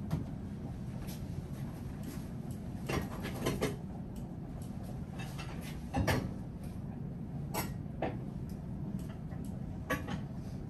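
Scattered knocks and clinks of plates, utensils and pots being handled and set down, about eight of them, the loudest about six seconds in, over a steady low background hum.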